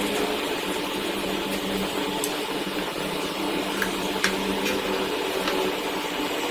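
Steady mechanical background hum with a few steady tones in it. A handful of light ticks come from a clear plastic T-square being set and slid against the wooden drawing board.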